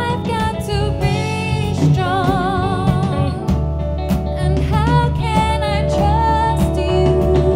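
Live band playing a dance-pop song: a female voice sings held notes with a wide vibrato over electric bass guitar and the rest of the band.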